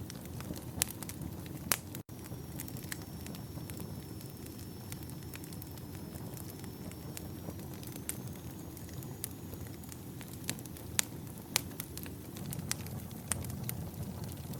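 Campfire of burning firewood: a steady low rumble of flames with scattered sharp crackles and pops from the logs. A faint, thin high whistle runs through the middle, and the sound cuts out for an instant about two seconds in.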